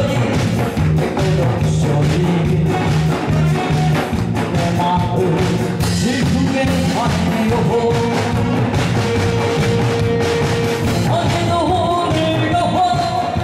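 A song performed live: singing over a loud backing track with a steady beat.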